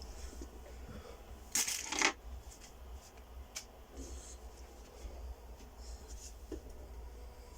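Quiet room tone with a steady low hum and scattered faint clicks, broken once about one and a half seconds in by a brief double rustle.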